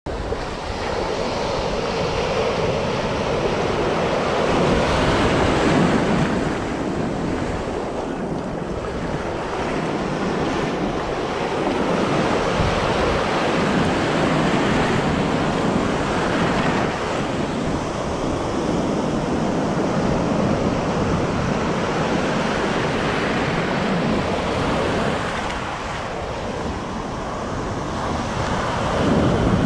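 Ocean surf breaking and washing up over the shallows, a steady rush that swells and eases every several seconds.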